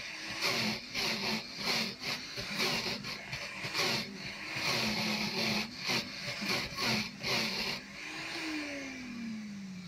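Countertop blender crushing ice for a slushie, chunks knocking against the jar as the tamper pushes them down, the motor's pitch dipping under load and recovering. About eight seconds in the motor is switched off and winds down with a steadily falling whine.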